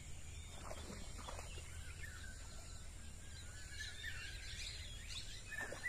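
Birds chirping and calling, several short calls clustered a few seconds in, over a steady low rumble, with a few faint knocks.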